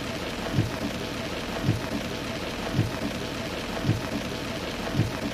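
Heavy rain falling on a car's windscreen and roof, heard from inside the cabin, with a dull thump from the windscreen wipers about once a second, five times.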